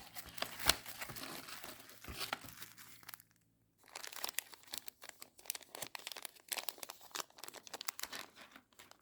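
Packaging being handled and opened: crinkling and tearing in two stretches, with a short break about three seconds in.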